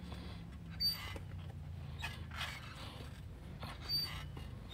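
A man breathing hard through a push-up set, a rasping breath about every second and a half, over a low steady hum.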